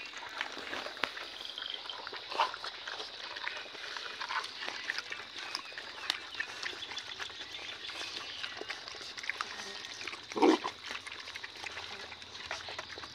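Puppies and a grown dog eating together from a shallow pan: a steady patter of chewing, lapping and small clicks against the dish. There is one brief, louder dog sound about ten seconds in.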